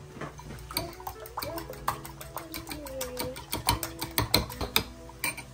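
Metal fork beating raw eggs in a glass bowl, its tines clinking quickly and repeatedly against the glass.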